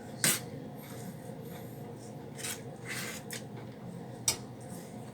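Four or five brief scraping, rubbing sounds from kitchen containers and utensils being handled.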